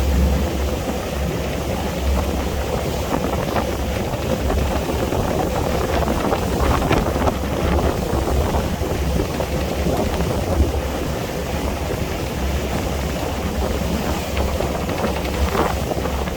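Boat under way: a steady low engine drone, with wind buffeting the microphone and water rushing and splashing.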